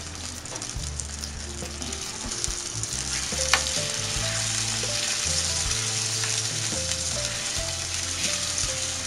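Raw chicken pieces sizzling in hot oil, pushed around a pan with a spatula. The sizzle swells about two to three seconds in, and the spatula knocks once against the pan about halfway.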